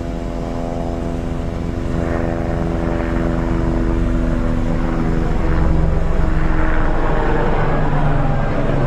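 Forced-air blower on a home-made metal-melting furnace running at full blast: a steady whirring hum over a rushing roar. The hum fades about six seconds in while the low roar grows louder.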